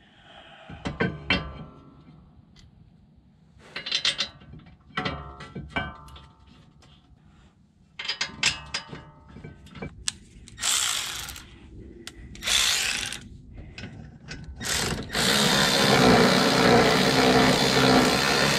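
Socket ratchet clicking in several short spells while brake bolts are worked, then a power tool running in two short bursts and in a longer steady run near the end, the loudest part.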